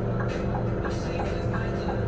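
Scania Citywide CN280UB's compressed-natural-gas engine idling with a steady low hum while the bus stands still, heard from the front of the passenger cabin. A light ticking repeats about three times a second over it.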